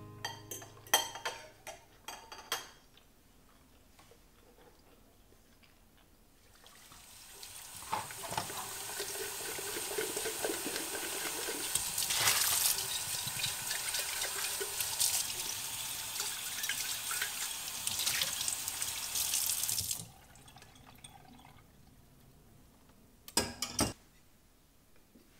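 Water from a kitchen tap running into a sink while a soapy bowl is rinsed by hand; the flow swells in and runs steadily for about thirteen seconds before it is shut off abruptly. Before it come a few sharp clinks of forks on plates and glasses, and near the end a couple of small clicks.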